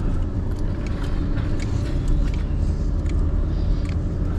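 Vehicle engine running at low speed, a steady low rumble with scattered faint clicks and knocks over it.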